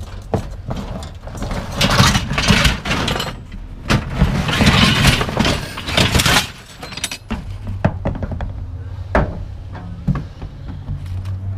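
Scrap metal pieces and pipes clanking and clattering as they are rummaged through in a large trash can, in repeated bursts of knocks, over a steady low hum.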